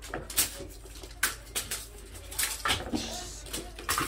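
Irregular light taps, thumps and scuffs, about a dozen, as a cat pounces and scrabbles at a wand toy on a carpeted scratching ramp.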